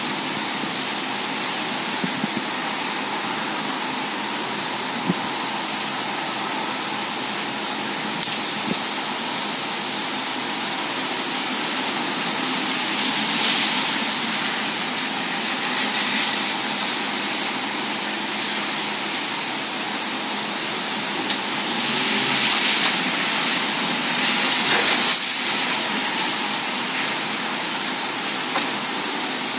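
Steady hiss of heavy thunderstorm rain, an even rushing noise that swells slightly a little after twenty seconds in, with one brief sharp click near the end.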